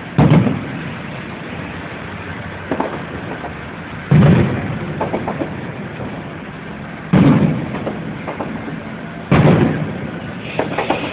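Aerial fireworks shells bursting: four loud booms a few seconds apart, each followed by a lingering rumble, with a couple of fainter pops between them.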